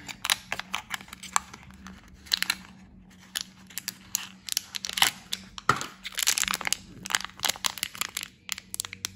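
A cardboard blind box being opened and the black foil pouch inside torn open and crinkled by hand: irregular crackling, tearing rustles.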